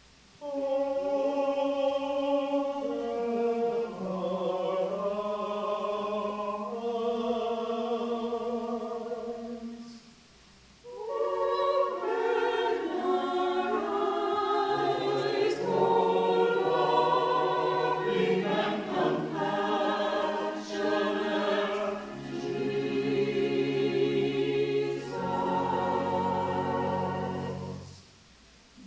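A choir singing in sustained, slow phrases, with short breaths between them. Deeper voices come in about halfway through.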